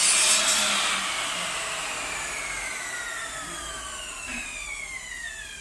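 Electric power tool's motor winding down after the trigger is released: a whine that falls steadily in pitch and fades over several seconds as the blade or bit coasts to a stop.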